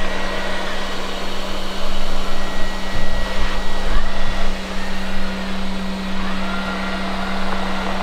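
Lefant F1 robot vacuum cleaner running on carpet: a steady motor and suction hum with a thin high whine over it, getting louder for a couple of seconds in the middle.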